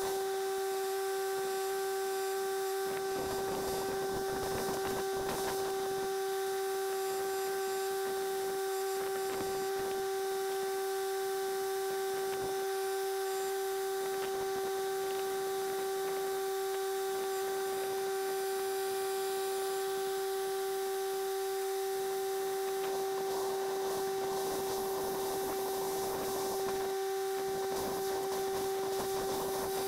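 A steady, unchanging hum at one pitch with overtones, with faint scattered taps and scrapes underneath.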